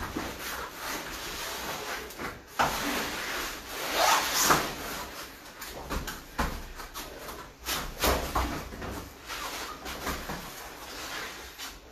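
Irregular thumps and rustling as two grapplers in cotton gis drop onto foam puzzle mats and push back up during sprawl drills: hands, knees and bodies landing on the mats, with the fabric brushing.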